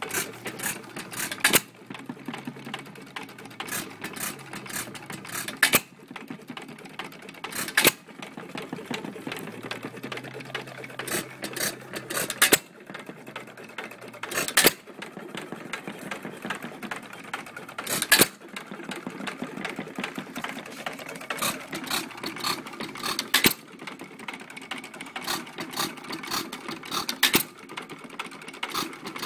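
Antique 2½ hp Empire hopper-cooled stationary gas engine running with a fast mechanical clatter. A sharp firing bang comes every two to five seconds as it fires and coasts between power strokes.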